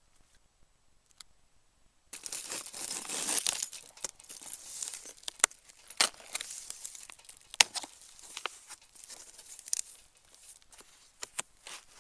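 Near silence for about two seconds, then a cardboard shipping box being opened: tape and cardboard tearing, followed by rustling and scattered sharp clicks of the packaging being handled.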